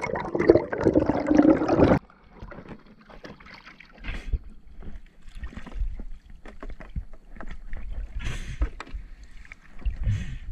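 Muffled underwater bubbling that cuts off abruptly about two seconds in. It gives way to quieter water lapping and splashing around a plastic kayak at the surface, with scattered small splashes and low bumps.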